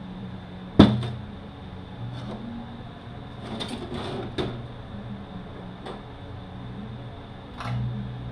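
Transmission parts being handled on a workbench: one sharp metal clunk about a second in, then several lighter clicks and knocks, over a steady low hum.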